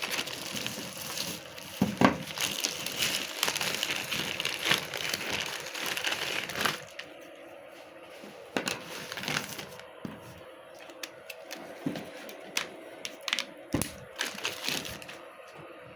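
Plastic bags being crumpled and gathered up: dense crinkling for about the first seven seconds, then quieter rustles and scattered light clicks.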